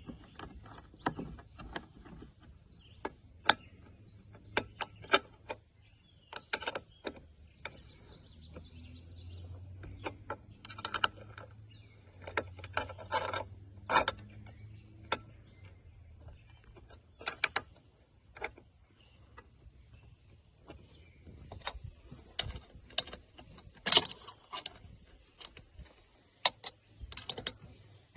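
Irregular clicks, taps and knocks of roof-rack crossbar hardware being handled and fitted, over a faint low hum.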